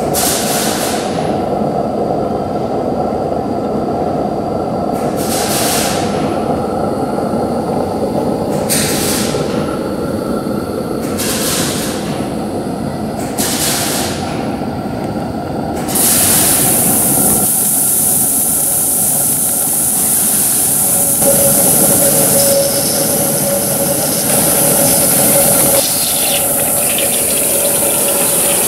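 Gauge 1 live-steam model of a Southern Pacific F-4 2-10-2 locomotive running on its track: a steady clatter of wheels and motion, with short hissing bursts every few seconds. About halfway through, a loud steady steam hiss sets in and continues.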